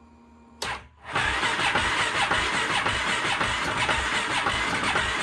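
A click, then the Polaris Sportsman 570 ATV's single-cylinder engine cranking on its electric starter from about a second in, turning over very slowly without yet catching.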